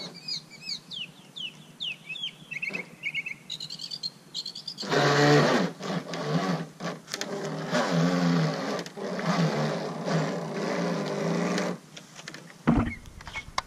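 Birds chirping for the first few seconds, then a Radio Ranger RC fishing boat's motor and propeller running on the water for about seven seconds, its pitch shifting as it goes. A sharp knock near the end.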